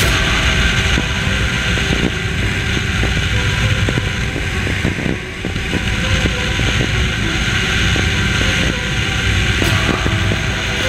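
Motorcycle running while under way, its engine sound mixed with steady wind rush on the microphone, dipping briefly about five seconds in.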